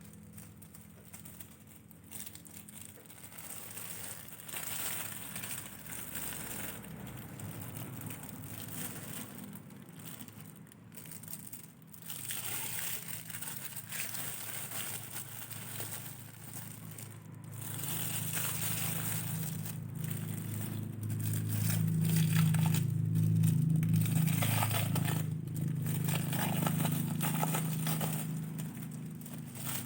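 Plastic packaging crinkling and rustling as it is handled and unwrapped. A low steady hum comes in underneath in the second half.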